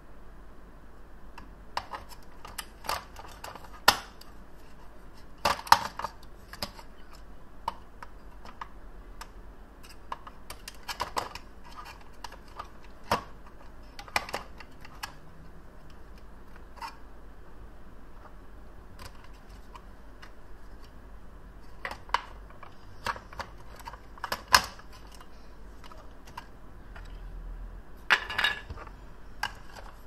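AA batteries being pushed into a plastic toy's battery compartment: irregular sharp clicks and clacks of the cells against the metal spring contacts and plastic casing. There is a quieter stretch around the middle and a cluster of clicks near the end.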